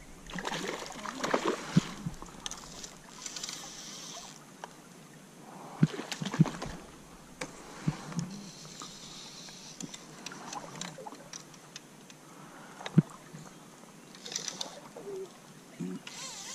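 River water splashing and sloshing now and then, with scattered sharp clicks and knocks throughout.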